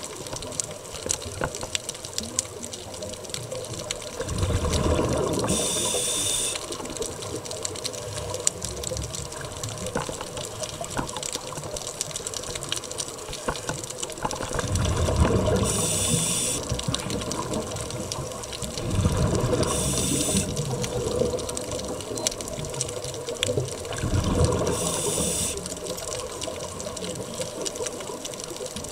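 Scuba diver breathing through a regulator underwater: four breaths several seconds apart, each a rumbling burst of exhaled bubbles with a short hiss of inhalation, over a steady underwater wash.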